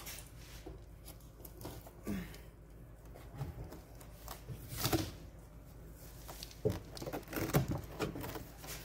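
Rustling, scraping and light clicking of a fabric mesh bug screen being handled and hung up close to the microphone, with a few louder scrapes spread through.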